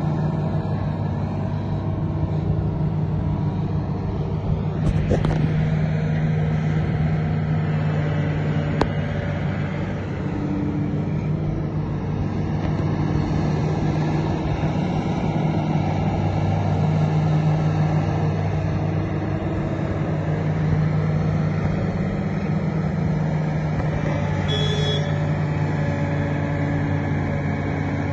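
Komatsu PC400LC demolition excavator's diesel engine running steadily, with a couple of faint knocks about five and nine seconds in.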